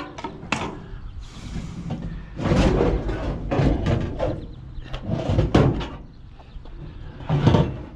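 Scraping, bumping clatter of a heavy scrap item being dragged and lifted out of a trash pile, in three loud bursts: a long one about two and a half seconds in, a shorter one past the middle, and a last one near the end.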